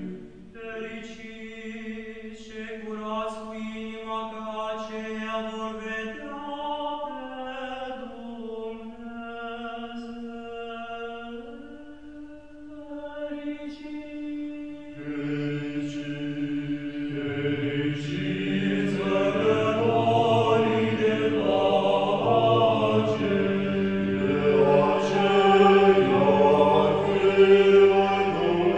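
Orthodox liturgical chant: a single voice chants long, slowly moving phrases, and about halfway through several voices join in harmony with a deeper part beneath. The singing grows fuller and louder.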